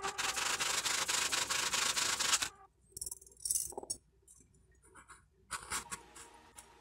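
Fabric loudspeaker spider rubbing and scraping against a voice coil former as it is worked into fit, a fast run of rasping strokes for about two and a half seconds, then a few faint scrapes and taps.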